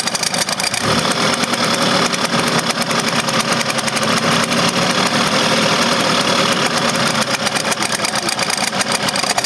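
Rebuilt Vespa PK125 CDI ignition firing across a spark gap on a bench test: a rapid, steady train of sharp snapping sparks that gets fuller and denser about a second in.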